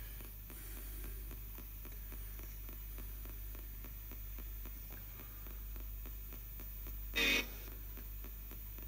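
ITC Research Device spirit box scanning the AM band in reverse: a steady hiss of static with rapid faint ticks as it steps through the stations, over a low hum. About seven seconds in there is one brief, louder burst of radio sound.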